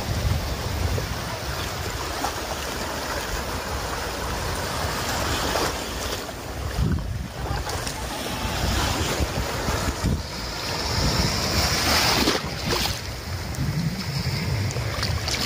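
Small sea waves washing and breaking in shallow surf, with wind buffeting the microphone as a low rumble. The wash swells louder about two-thirds of the way through.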